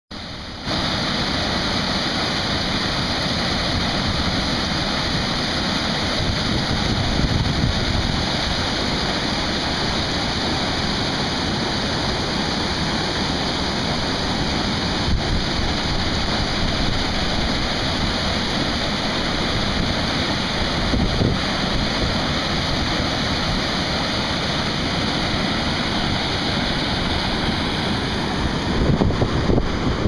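Water rushing over a low concrete dam spillway and churning into the stream below, a steady noise of falling water, with wind buffeting the microphone.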